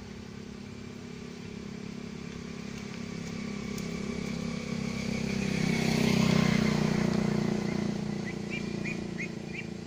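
Engine of a motor vehicle passing on a nearby road, its steady drone rising to its loudest about six seconds in and then fading away. A few short high chirps come near the end.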